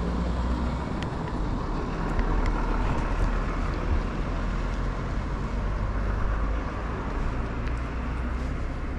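Steady outdoor street noise with a low traffic rumble, and a few faint ticks.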